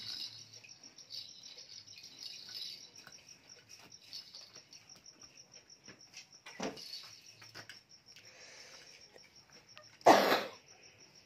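Cricket chirping in a steady, rapid, even pulse, with faint clicks and taps from plastic baby toys being handled. A single brief loud burst comes near the end.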